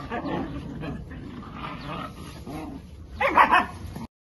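Puppies whimpering and yipping as they play-fight, with a burst of loud, high yips and barks about three seconds in. The sound cuts off suddenly about a second later.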